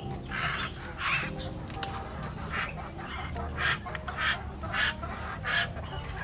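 Caged hill mynas calling: a string of short, harsh squawks, several a second, loudest in the second half.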